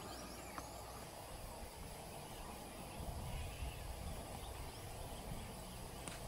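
Faint outdoor background on an open golf course: an uneven low rumble with a few faint, high, short chirps, mostly about a second in.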